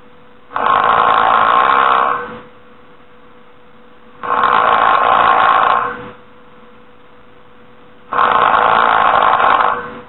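A person snoring: three snores, one about every four seconds, each a little under two seconds long. A faint steady tone runs underneath.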